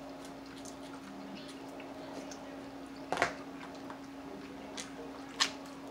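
Eating sounds while picking at snow crab legs and corn: a few short sharp clicks and snaps, the loudest about three seconds in and another about five and a half seconds in, over a steady hum.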